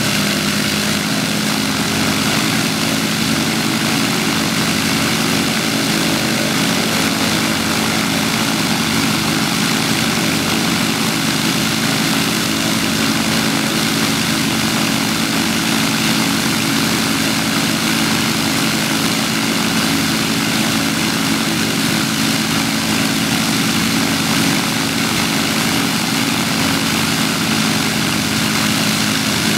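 Avro Lancaster's four Merlin V12 piston engines running together on the ground, all four propellers turning, in a loud, steady drone that holds the same pitch throughout.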